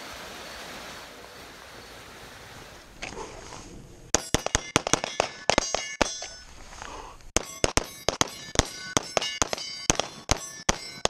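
Steady hiss, then from about four seconds in rapid strings of 9mm pistol shots from a Glock 17 with a Trident Defense Poseidon slide, each shot followed by the ringing of steel targets being hit. There is a brief pause about seven seconds in before the firing resumes.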